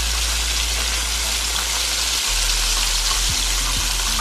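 Whole fish deep-frying in oil in an electric pan turned up to its highest, 400 degrees: a steady, dense sizzle, with a low hum underneath.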